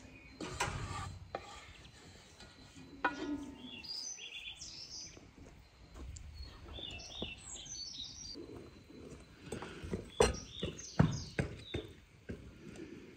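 Small birds chirping in short high phrases, with sharp taps and clinks of tableware (spoons against glass bowls and a metal tray) as food is handled; the taps come in a quick cluster near the end and are the loudest sounds.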